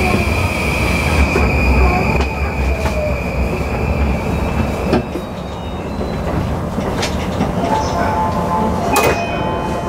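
Running sound of a JR East E235 series Yamanote Line train with Mitsubishi SiC-VVVF traction control, slowing down. A steady high whine fades in the first few seconds and the heavy low rumble drops away about four seconds in. Short squealing tones and a couple of knocks follow near the end.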